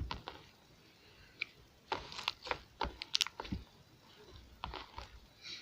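Freshly borax-activated glue slime, still a little sticky, being squeezed and kneaded by hand: irregular small clicks and pops in clusters.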